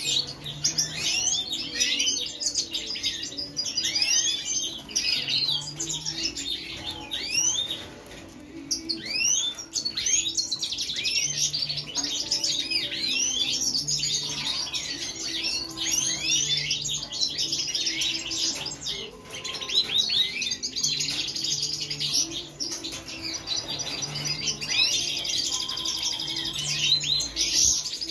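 Several European goldfinches twittering and chirping without pause, quick rising and falling notes overlapping one another.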